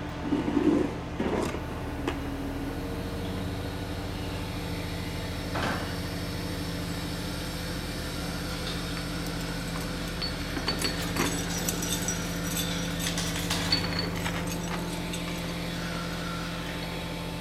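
Heavy truck's engine running steadily at idle, with short clatters of wooden boards and metal parts being handled, thickest for a few seconds past the middle.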